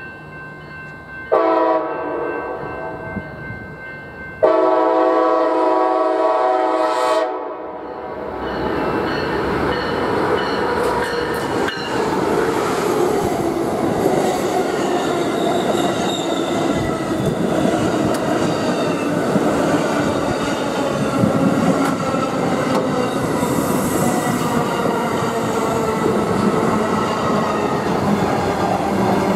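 Passenger train horn sounding two long blasts, the second louder. The train then runs past on the rails with a steady loud rumble.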